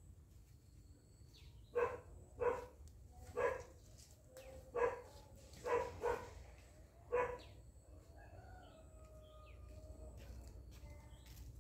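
A dog barking about seven times in short, uneven barks over roughly five seconds, then falling quiet.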